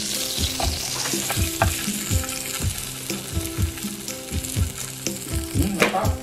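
A sizzling, frying sound that comes in suddenly and thins toward the end, over background pop music with a steady beat.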